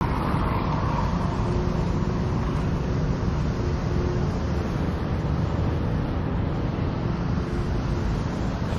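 Steady rumble of road traffic, with no single vehicle standing out.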